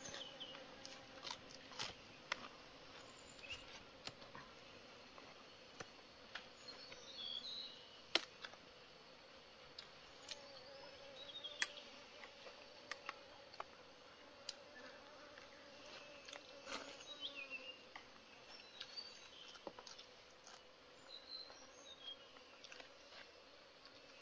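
Faint ambience: a low steady hum with many scattered sharp clicks and, now and then, short high chirps.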